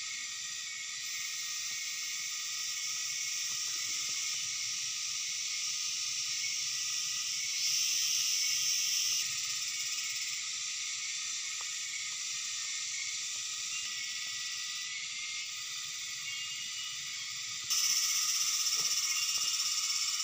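Steady high-pitched outdoor animal chorus, swelling louder for a moment about eight seconds in and again near the end.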